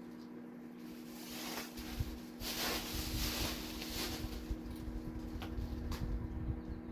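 Black & Decker microwave oven running with a steady hum while a toaster burns inside it. A burst of hissing noise swells about a second in and dies down past the fourth second, with a low rumble under it and a few sharp crackles near the end.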